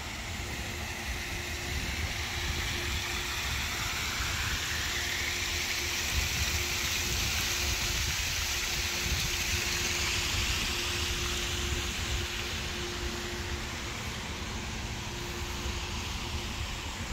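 Steady outdoor rushing noise, like traffic or running water, that swells for several seconds in the middle, with a faint steady hum underneath.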